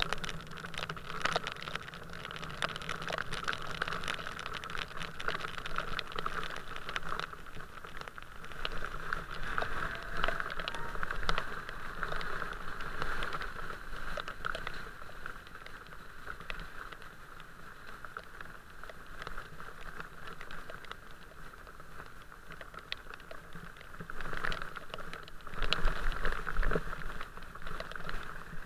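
Rain pattering, with many scattered sharp taps of drops, over a steady wet hiss; the sound grows louder with a low rumble near the end.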